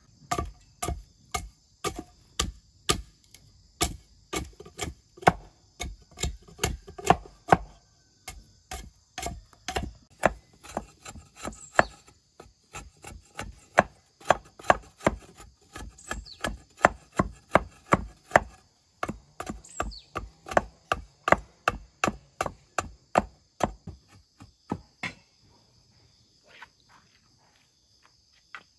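Machete chopping down a wooden pole in quick repeated strokes, about two or three a second, shaving curls of wood off it; the strokes stop about 25 seconds in. A steady high insect buzz runs underneath.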